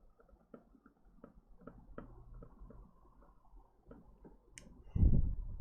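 Faint, irregular small clicks and ticks, a few a second, then a short low thump near the end, the loudest sound here.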